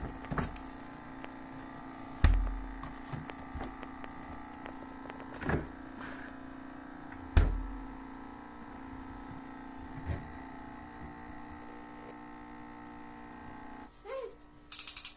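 Noisy two-year-old American Home personal refrigerator humming: a steady drone of several even tones, with a few dull thumps in between. The hum cuts off near the end.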